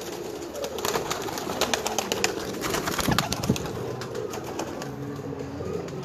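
Domestic high-flying pigeons cooing, with many short clicks and rustles scattered through it.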